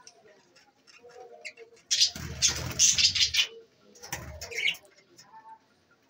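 Flock of budgerigars chirping and warbling, with a louder burst of noise about two seconds in that lasts over a second and a shorter one about four seconds in.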